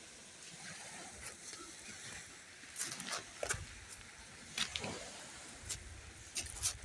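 Footsteps crunching irregularly over coral rubble and broken shells, over a faint steady hiss. The crunches start about three seconds in, and a low rumble runs under some of them.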